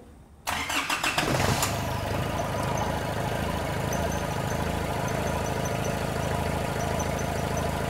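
Four-cylinder common rail diesel engine being started: after about half a second the starter cranks it for roughly a second until it catches, then it settles into a steady idle.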